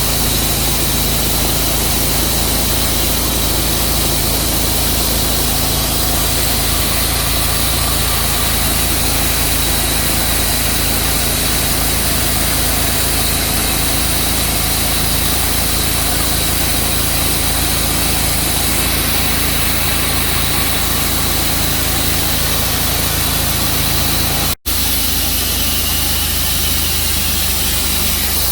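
Sawmill engine running steadily under the cut of a large bur oak log. It drops out for an instant near the end, then carries on.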